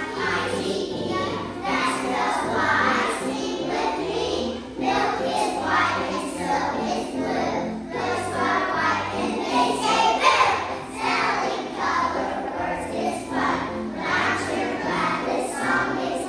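A choir of young children singing a song together, with a musical accompaniment underneath.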